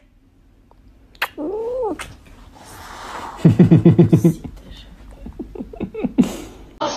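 Tabby cat vocalising: one meow that rises and falls in pitch, then a louder stuttering run of rapid short cries lasting about a second, followed by scattered soft clicks.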